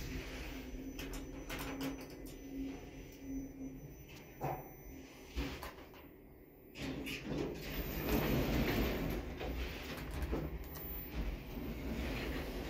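Automatic sliding doors of a Kleemann machine-room-less traction elevator, with the door operator humming, a few clicks as car buttons are pressed, and a longer sliding sound from about the middle on.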